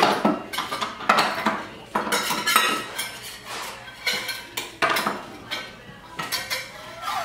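Metal utensil clanking and scraping in a small stainless steel saucepan: an irregular run of clinks and clanks, several a second, each with a short metallic ring.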